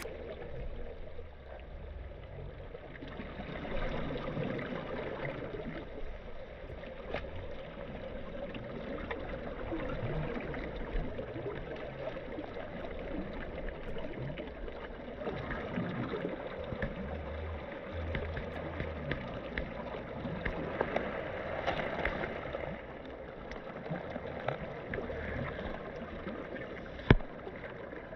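Steady running water, as of a stream, with a low rumble underneath and one sharp click near the end.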